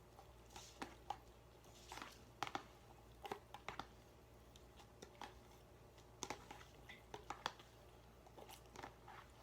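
Faint, scattered clicks and soft rustles of handling the food and utensils at the table, a few every second with short quiet gaps.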